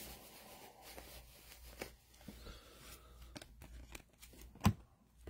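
Baseball trading cards being flipped and slid off a hand-held stack: a soft rustle and flick of card stock sliding over card, with a few light clicks and one sharp tap near the end.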